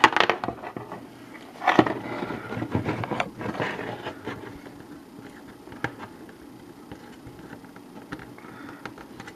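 Handling noise from a printed circuit board being turned over and fingered while a loosened transistor is worked at: a sharp knock at the start and another about two seconds in, with rubbing and scraping. After that the sound drops to faint scattered clicks.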